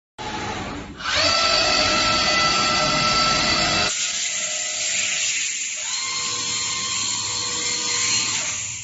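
CNC router spindle running and cutting: a steady high whine over a hiss of cutting noise. The sound changes abruptly about four seconds in, and a different steady whine sets in about two seconds later.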